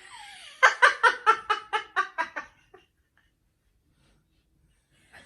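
A person laughing: a short falling vocal cry, then a run of quick 'ha' pulses lasting about two seconds that fade away.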